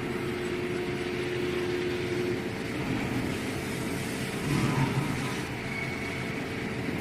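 Metal lathe running while a 1-inch NPT pipe thread (11½ threads per inch) is cut, giving a steady machine hum with a constant tone. A louder rough stretch comes about four and a half seconds in.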